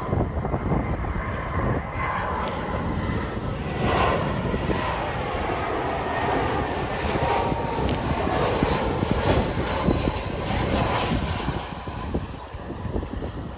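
Airbus A319's IAE V2500 turbofan engines passing low overhead on final approach: a steady jet rumble with a faint whining tone, growing louder then fading off near the end as the airliner moves away toward the runway.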